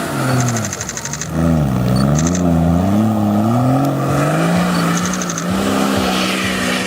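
Range Rover 4x4 engine working off-road, its note rising and falling as the throttle is eased on and off. Three short bursts of rapid high ticking come through the engine sound.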